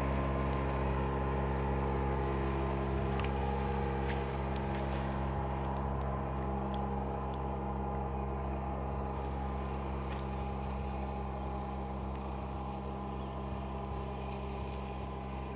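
A small motorboat's engine drones steadily out on the water and slowly fades. A few faint clicks sound over it.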